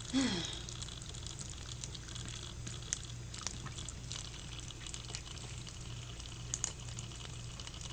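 Tap water running steadily into a sink while a cat drinks from the stream, with scattered light clicks. A short falling vocal sound right at the start.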